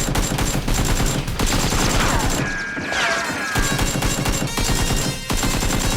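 Rapid bursts of automatic gunfire sound effects, with a few falling whistles in the middle and a short break near the end, over background music.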